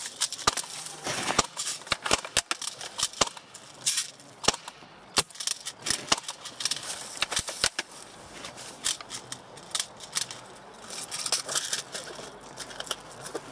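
Airsoft guns firing: an irregular scatter of sharp single shots and clicks, thick through the first half and thinning out later.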